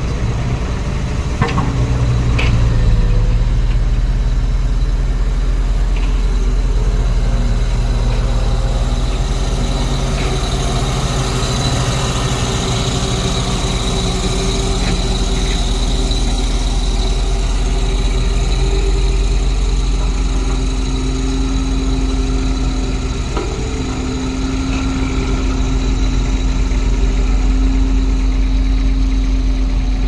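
CASE tandem drum roller's diesel engine running steadily as the roller compacts soil, with a couple of knocks about two seconds in.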